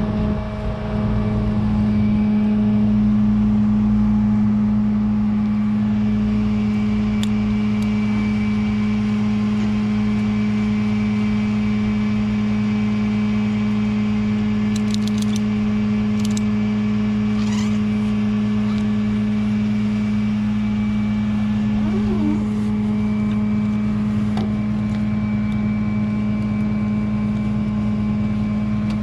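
Rollback tow truck's engine idling, a steady low hum, with a few faint clicks about halfway through.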